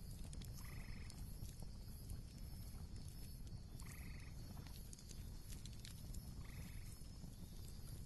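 Faint campfire ambience with scattered crackles and pops over a low steady rumble. A short pulsed animal call repeats three times, about three seconds apart.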